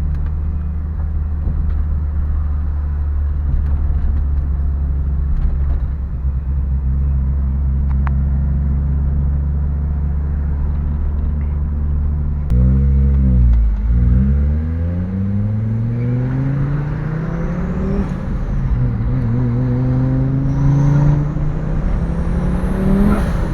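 Fiat Marea Turbo's turbocharged five-cylinder engine while driving: a steady drone for about twelve seconds. Then the revs drop and climb again as it shifts and accelerates, with faint high whistles rising and falling near the end. The engine is still cold and driven gently.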